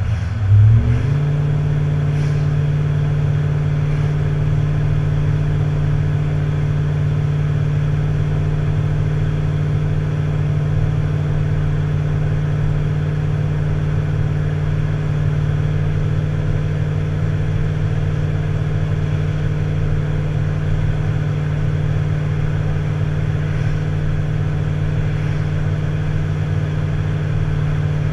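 Tow vehicle's engine running steadily under way. About a second in there is a brief low thump and the engine note rises, then it holds an even pitch.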